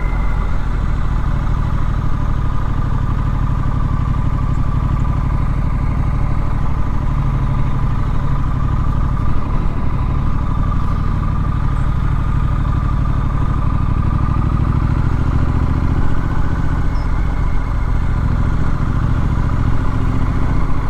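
Triumph Street Scrambler's 900 cc parallel-twin engine running steadily while the motorcycle is ridden, its note shifting slightly with engine speed.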